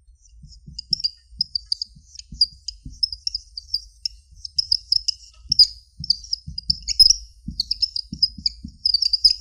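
Marker pen squeaking on a whiteboard as Chinese characters are written: a quick run of short, high squeaks, one per stroke, with soft taps of the pen tip between them.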